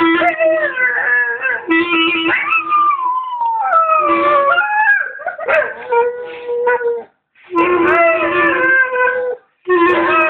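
A Staffordshire bull terrier howling along to a clarinet: the dog's voice slides up and down in long wavering howls over the clarinet's steady held notes, with two short breaks in the second half.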